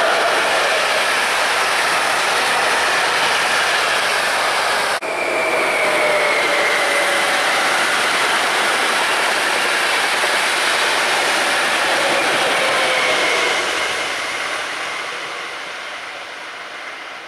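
Passenger train passing close by: a loud, steady rush of wheels on rail, with faint tones sliding slowly downward and a momentary break about five seconds in. The sound fades away over the last few seconds as the train recedes.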